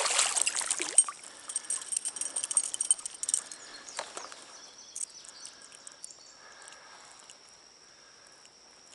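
Water splashing as a small hooked brown trout is brought in, with scattered sharp clicks and taps that die away about four seconds in. A steady high insect trill runs on behind.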